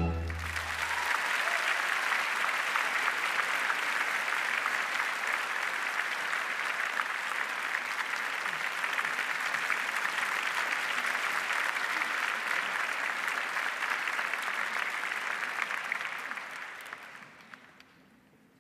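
Theatre audience applauding steadily, with the orchestra's last low note dying away in the first second. The applause fades out about two seconds before the end.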